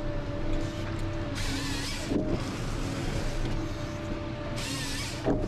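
Ponsse Scorpion King forest harvester running steadily, a whine over its engine drone. Two short hissing bursts, each under a second, come about a second and a half in and again near the end.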